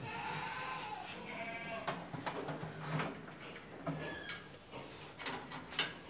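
Goat bleating: one long bleat, then a shorter, higher one, followed by scattered knocks and thuds.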